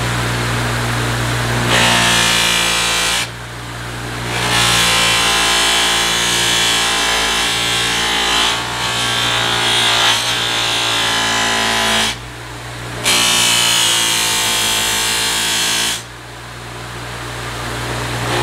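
A bench buffer's motor runs with a steady hum while a steel knife blade is pressed against the spinning buffing wheel in repeated passes. Each pass gives a loud, high scraping hiss, which drops away briefly three times as the blade is lifted off the wheel.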